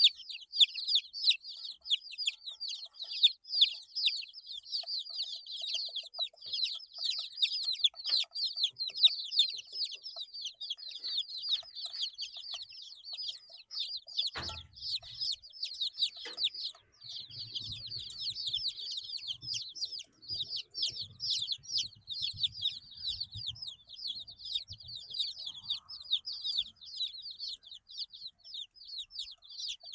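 A brood of 8-day-old chicks peeping continuously: many rapid, overlapping, high-pitched cheeps, each sweeping down in pitch. About halfway through there is a single sharp knock, followed by soft low thuds for several seconds.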